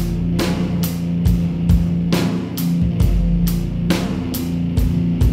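Rock music with a drum kit keeping a steady beat of about two hits a second, over held guitar notes.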